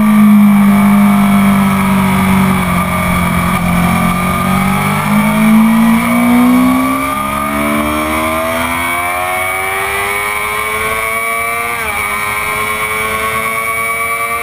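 A stock 2004 Honda CBR600RR's inline-four engine, heard from onboard at speed with wind rushing over the microphone. It holds a steady note for a few seconds out of the corner, then revs climb steadily under acceleration, with a quick upshift about twelve seconds in before the revs climb again.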